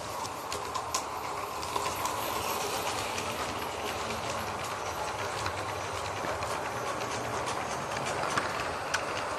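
LGB garden-scale model train, led by a U-Lok narrow-gauge steam locomotive model, rolling past on its brass track. A steady running hum comes with irregular sharp clicks from the wheels and wagons on the rails.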